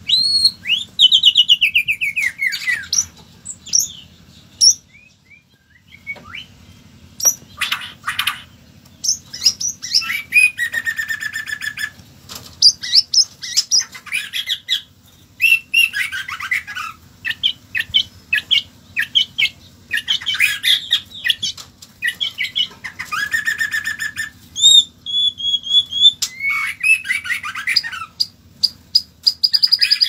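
White-rumped shama singing a long, varied song of whistled phrases, sliding notes and rapid trills, with a short pause about five seconds in.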